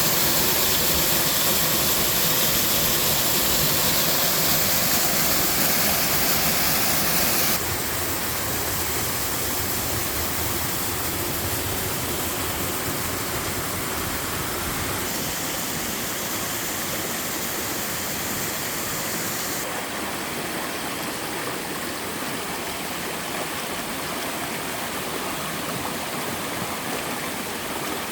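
A mountain waterfall pouring in a steady rush of water. The rush turns suddenly quieter and duller about a quarter of the way in, and its hiss shifts again twice later on.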